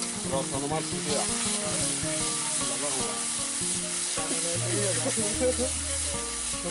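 Masala paste of grated onion, ground mustard and ginger-garlic sizzling in hot oil in a large metal kadai, stirred and scraped with a metal spatula. The sizzle is steady throughout.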